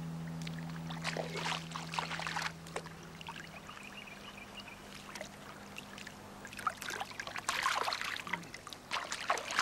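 Water splashing and trickling in the shallows as a barramundi is held in the water and released, in irregular small splashes, busiest early on and again near the end.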